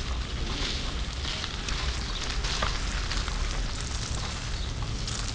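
Wind and handling noise on a moving camera's microphone: a steady low rumble with scattered crackling.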